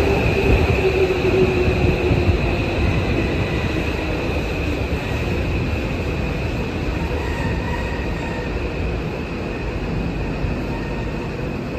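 Subway train running in the tunnel: a steady heavy rumble with a high wheel squeal, and a motor whine that falls in pitch over the first few seconds, the whole sound slowly easing off.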